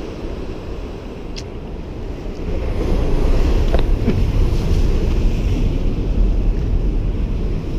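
Wind buffeting the microphone over the steady rush of sea surf; the low wind rumble grows louder about three seconds in.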